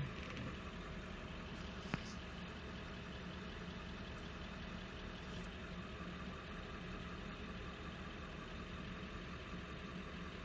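Engine idling steadily with an even hum, and a single sharp click about two seconds in.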